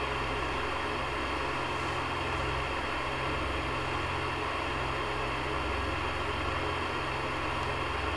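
A steady hiss over a low hum, unchanging throughout, with no distinct events.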